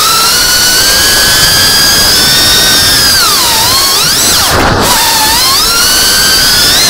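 FPV racing quadcopter's brushless motors and propellers whining, the pitch rising and falling with the throttle. The pitch dips about three and a half seconds in, then swoops with a brief break near the fifth second, as the throttle is chopped and punched again.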